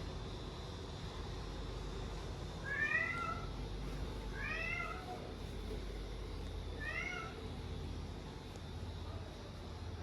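Domestic cat meowing three times, a few seconds apart, each meow rising and then falling in pitch.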